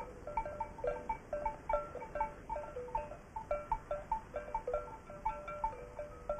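Livestock bells on a grazing herd, clinking irregularly at several different pitches, a few strikes a second.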